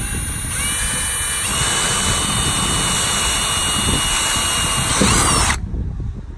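Cordless drill running a twist bit through an aluminum boat deck to make a pilot hole. The motor's whine climbs as it speeds up over the first second and a half, holds steady, then stops about five and a half seconds in.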